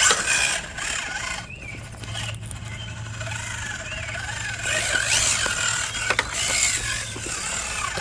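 Small electric motor and gear whine of a 1/10-scale RC rock crawler, rising and falling in pitch as the throttle is worked, with a few sharp clicks and knocks, louder in the second half.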